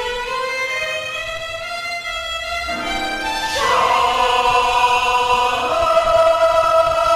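Solo violin playing a melody, then a mixed chamber choir comes in about halfway through, singing a held chord.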